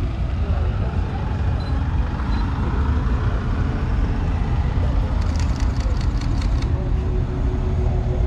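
Truck engine running with a heavy, steady low drone. About five seconds in comes a rapid run of sharp clicks, lasting about a second and a half.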